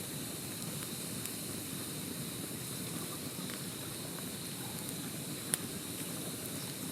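Wood campfire burning with a steady hiss and a few sharp crackles, the loudest pop about five and a half seconds in.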